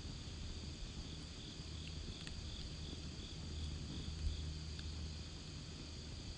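A wood campfire burning, with a few sharp crackles over a steady low rumble. An insect chirps in an even pulse, about three chirps a second, through the middle.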